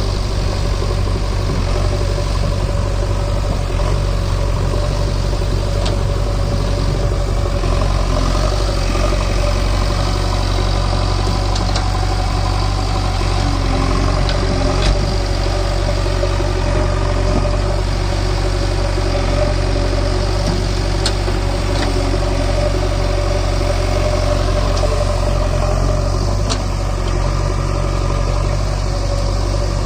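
A JCB backhoe loader's diesel engine running steadily, with its loudness holding level throughout.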